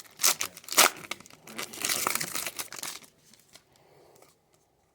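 A trading card pack wrapper being torn open and crinkled, with two sharp rips in the first second, then more crinkling that stops about three seconds in.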